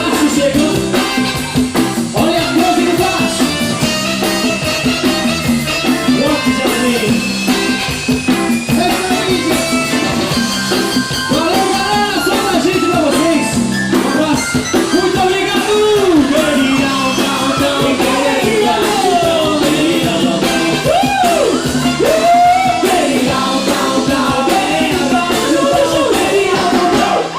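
Live band playing rock-style music with drum kit and guitar, a melodic line sliding up and down in pitch over it in the second half.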